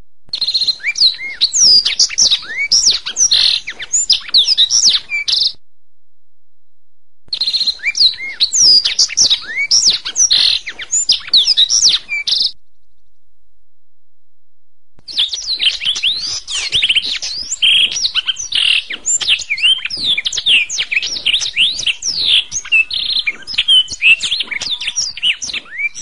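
Domestic canary singing in three bouts of fast, varied trills and whistles, broken by two pauses of about two seconds.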